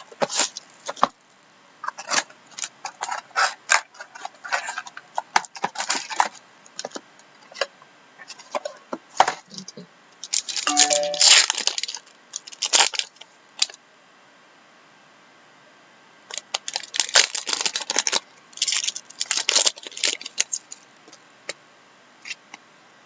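Trading card packs and cards being handled: a run of short crinkles, clicks and rustles from foil wrappers and card stock, with a denser stretch of rustling about halfway through and a brief lull a few seconds later.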